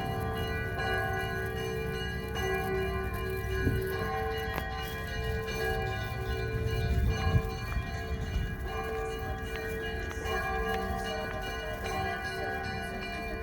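Several church bells of different pitches ringing together in a continuous peal (Russian kolokolny zvon), fresh strikes sounding over the lingering tones of the others.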